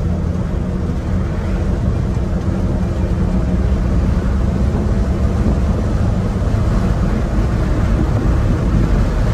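Inside the cab of a 1979 Chevrolet C10, the original 250 cubic-inch inline-six runs steadily under way. It drones through its single exhaust with catalytic converter, mixed with tyre and road noise.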